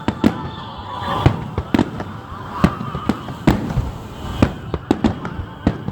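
Aerial fireworks shells bursting in quick, irregular succession during a fireworks finale, sharp bangs a few times a second, some louder booms among them.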